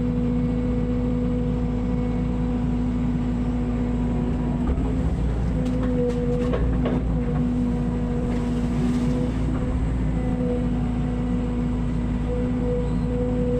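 Mini excavator's engine running steadily with a constant droning hum, with a few short knocks about six to seven seconds in.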